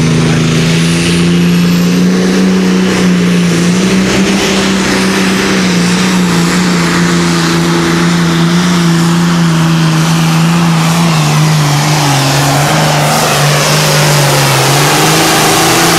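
Super farm pulling tractor, a red International, at full throttle pulling the sled: a loud, steady engine note that climbs a little as the tractor gets going, then sinks slowly lower over the last few seconds as the sled bogs it down.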